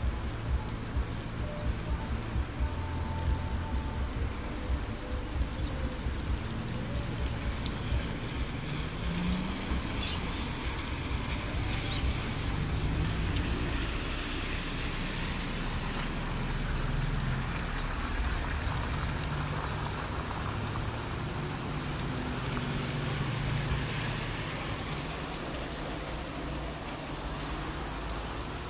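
Steady rain falling on a wet road and pavement, with wind buffeting the microphone in the first few seconds.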